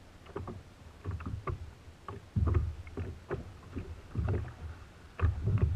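Irregular low thumps and short knocks, about one a second, on a plastic sit-on-top kayak as the anchor line is jerked by hand to feel the anchor striking the bottom.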